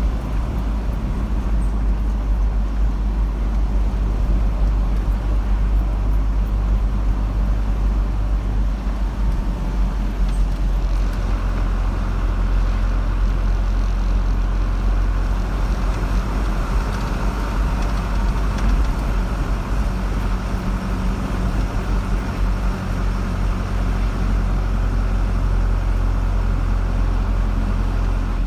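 Steady low rumble of a car's engine and tyres on the road, heard from inside the moving car, growing a little fuller about a third of the way in.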